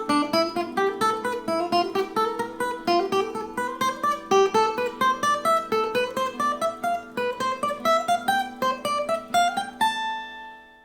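Acoustic guitar played fast, one plucked note at a time, in runs that climb in pitch and start again: a finger-speed exercise. The last note rings out and fades near the end.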